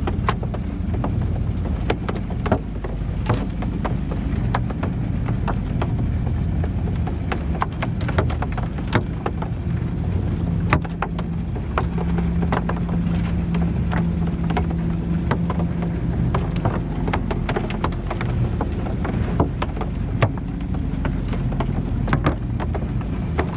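Outboard motor running steadily at low speed, its hum swelling for several seconds midway, with irregular clicks and knocks as a gillnet pays out over the boat's gunwale.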